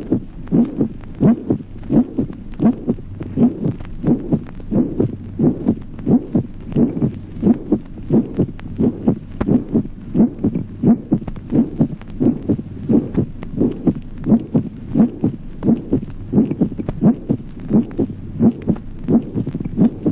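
Recorded human heart sounds: a steady, even rhythm of paired lub-dub beats, in which the first heart sound is resonant and some isolated first sounds have a musical ring. A steady low hum runs underneath.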